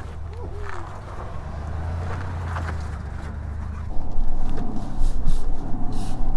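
2023 Ford F-250 Super Duty Tremor pickup's engine running low and steady as the truck crawls over boulders in four-wheel-drive low, with a few short knocks; it gets louder about four seconds in.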